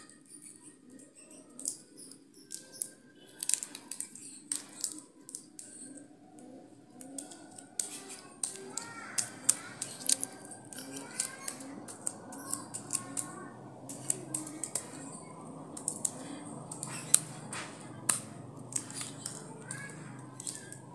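A small child eating from a paper wrapper with a wooden stick: irregular sharp clicks and crackles, close to the microphone, with a low murmur of voices in the background from about eight seconds in.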